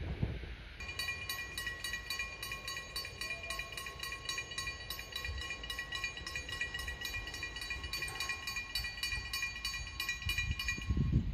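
Level-crossing warning bell ringing rapidly and evenly with a metallic tone, several strikes a second. It starts about a second in and cuts off shortly before the end.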